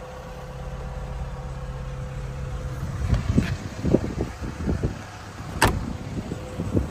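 Inside a road sweeper's cab, a steady low hum gives way to irregular knocks and handling noise. About two-thirds of the way through comes one sharp click, like the latch of the cab door being opened.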